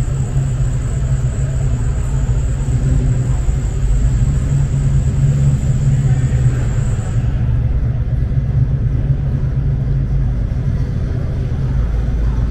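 Steady low rumble of a large indoor exhibition hall's background noise, with a faint high whine that stops about seven seconds in.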